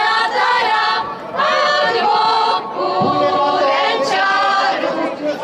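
A group of women singing a Moravian-Slovak folk song together, with short breaks between phrases about a second in and again near the middle.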